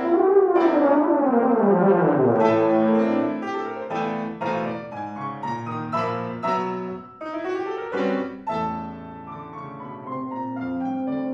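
Euphonium and piano playing a euphonium concerto: a falling euphonium phrase opens, then the piano strikes a run of chords, and the euphonium slides up and comes back with a long held note near the end.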